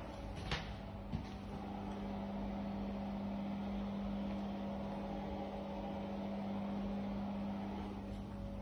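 A steady low hum from an electrical appliance or motor, with a couple of faint clicks in the first second or so.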